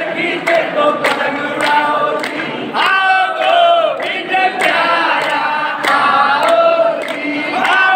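A crowd of men and women singing a chant together in a call of many voices, with sharp, regular beats about twice a second keeping time.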